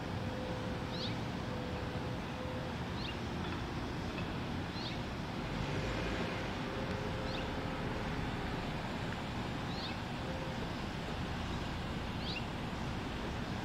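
Outdoor background: a steady low rumble like distant traffic, with a bird giving a short high chirp about every two seconds.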